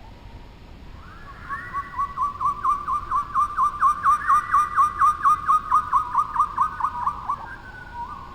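A bird calling: a long series of clear whistled notes, about four a second, slowly falling in pitch. It starts about a second and a half in and stops near the end.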